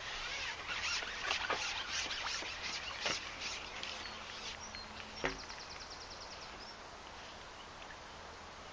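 Rustling and scraping from the fishing pole being handled and moved, in a run of uneven strokes over the first three seconds or so, then a single sharp knock about five seconds in.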